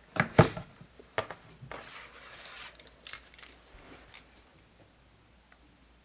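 Small hard desk objects clattering as they are handled and set down, a loud knock about half a second in, then a few seconds of lighter clicks and rattling that stop after about four seconds.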